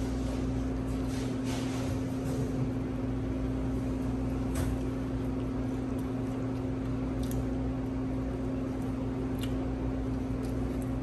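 Steady low hum of running machinery, with a few faint soft clicks and smacks of someone chewing food.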